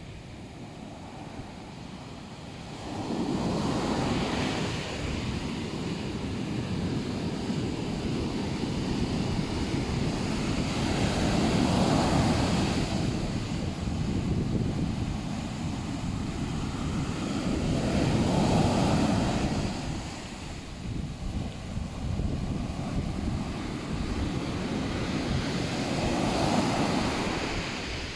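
Ocean waves breaking on a beach, the surf swelling and fading roughly every seven or eight seconds, with some wind noise on the microphone.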